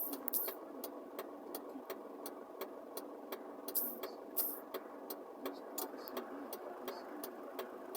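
Light, irregular tapping clicks, about three a second, from typing a search on a device, over a steady low hum.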